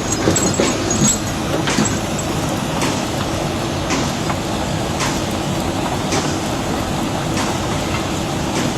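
Heavy machinery engine running steadily, with a faint sharp click about once a second.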